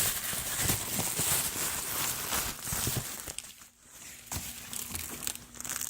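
Packaging rustling and crinkling as an item is handled and unwrapped, with many small crackles, growing quieter after about three seconds with a few separate ticks.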